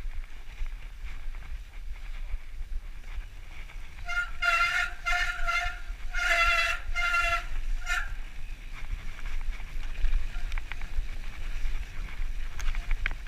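Mountain bike disc brakes squealing as the brakes are applied, a high pitched tone broken into several squeals in a row from about four seconds in to about eight seconds in. Underneath, a steady low rumble of tyres on a dirt trail and wind on the camera.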